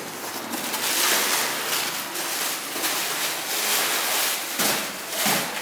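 Packaging rustling and crinkling unevenly as the exhaust's box is opened and its parts are unwrapped.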